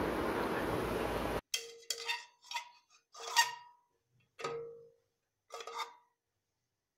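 Steel cookware clinking: six separate strikes with the same short metallic ring, after a steady background hiss that cuts off suddenly about a second and a half in.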